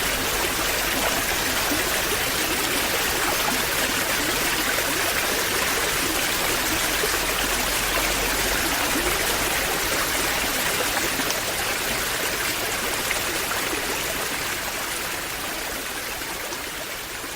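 Waterfall: a steady rush of falling, splashing water that fades out over the last few seconds.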